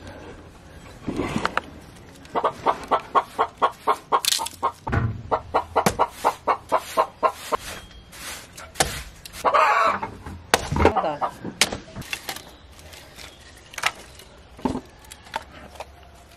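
Firewood being chopped and split with an axe: sharp wooden knocks every second or so. Mixed with a chicken clucking in quick runs of about five clucks a second.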